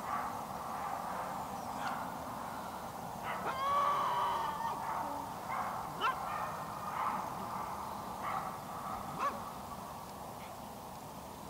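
Honking bird calls over a steady background of distant calling, loudest about four seconds in, followed by a few short sharp calls.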